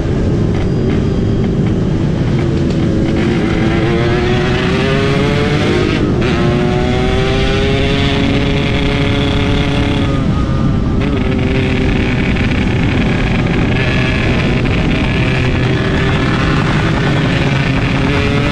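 Yamaha RX-King 135 cc two-stroke motorcycle engine running under way, its revs climbing and falling back several times, most sharply about six seconds in and again around ten to eleven seconds in.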